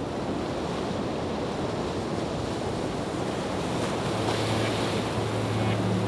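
Steady rushing noise of water falling from a waterfall into a pool. About four seconds in, a low steady hum joins it.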